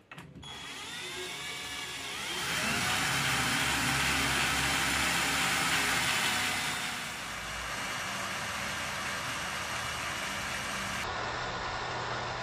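Small electric motor and gearbox of a handmade RC car turning a steel drive shaft with brass couplers, whirring with a rising whine as it spins up over the first couple of seconds. It then runs steadily and drops to a lower, quieter speed about seven seconds in.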